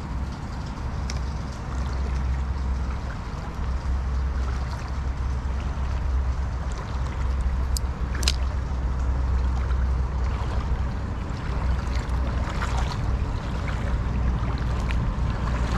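River water trickling and flowing past the bank, with a steady low rumble under it. A sharp click sounds about eight seconds in, with a few fainter ticks later.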